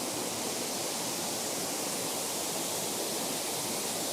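Steady rush of a wide curtain waterfall, water sheeting down a drop of about ten metres, as one constant even roar.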